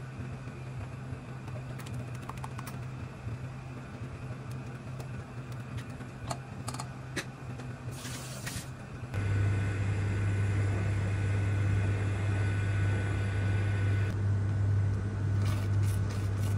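Steady low mechanical hum that gets louder and deeper about nine seconds in. Near the end there are a few light clicks and scrapes as a silicone spatula stirs a thick mixture in a stainless steel pot.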